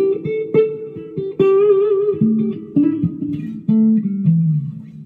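Harley Benton DC-580 CH solid-body electric guitar (an SG copy) played through a small amp on its neck pickup, tone wide open: a dark single-note lick of plucked notes, one held with vibrato about two seconds in, then a run stepping down into lower notes near the end that rings out.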